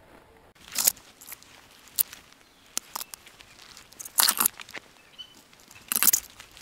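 Footsteps crunching through dry leaves and snapping twigs and brush, in a handful of irregular bursts; the loudest come about four and six seconds in.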